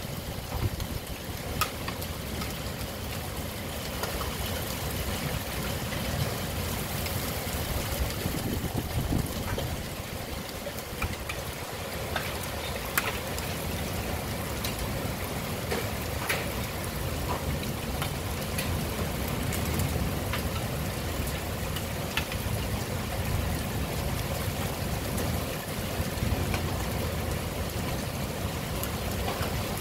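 Heavy rain falling steadily in a thunderstorm, with many scattered sharp ticks of drops striking nearby surfaces and a low rumble underneath.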